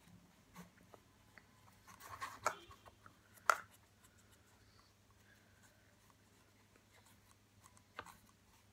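Paintbrush strokes scratching faintly on cardboard, broken by a few light clicks and knocks. A short rustle comes about two seconds in, and the sharpest knock about three and a half seconds in.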